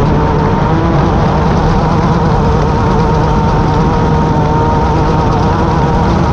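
Class 10 off-road race car engine running continuously, its pitch wavering slightly, over a constant low rumble.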